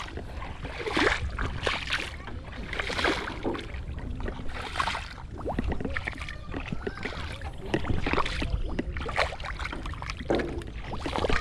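Shallow muddy water sloshing and splashing in irregular surges as a person wades and gropes through it by hand for fish.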